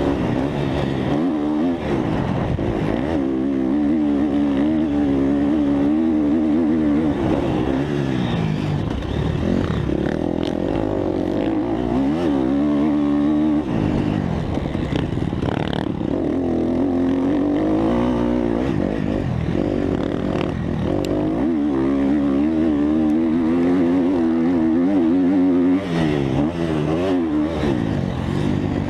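Motocross dirt bike engine recorded on board while riding, its pitch rising and falling again and again as the rider twists the throttle on and off and shifts through the gears.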